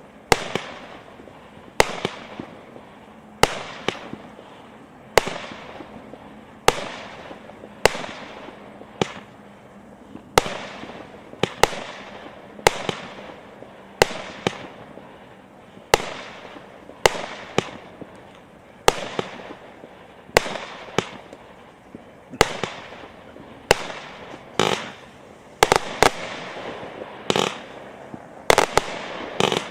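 A 120-shot, 0.6-inch consumer fireworks cake (JF C15-120/01V01) firing shot after shot. Each shot is a sharp bang with a brief crackling tail, about one a second, coming faster near the end.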